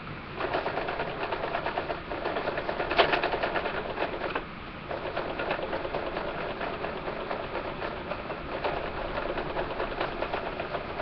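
Sewing machine stitching through a scrap strip of cloth, the needle running in a fast, even clatter. It stops briefly about four and a half seconds in, then starts stitching again.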